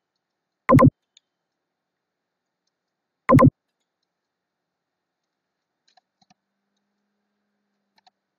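Two loud computer mouse clicks about two and a half seconds apart, each a short knock picked up close to the microphone, followed near the end by a few faint clicks.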